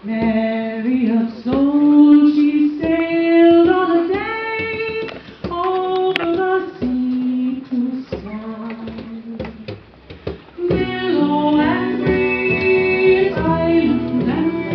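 A solo singing voice carries a slow melody alone in phrases with short breaks, and a band of instruments joins underneath about eleven seconds in.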